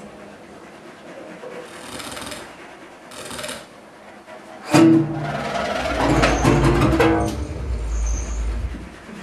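Free improvised experimental music from a small ensemble. It starts sparse and quiet, with two short airy hisses. About halfway through comes a sudden loud entry of held pitched tones, followed by dense layered sound over a deep low rumble that dies away near the end.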